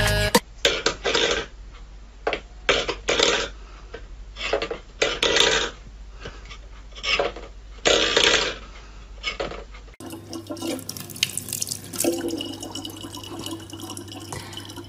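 Metal pet bowls clattering and scraping on a wooden floor in about ten short bursts. Then a kitchen tap runs a thin, steady stream of water into a plastic water bottle.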